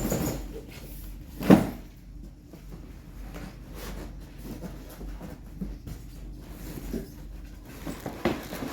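Handling of a remote control car's box as it is being opened: one sharp knock about a second and a half in, then scattered soft taps and rustles, and another knock near the end.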